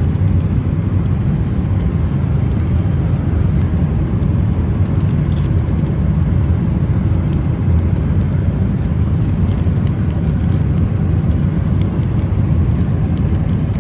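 Steady low rumble of a vehicle in motion, with no single event standing out.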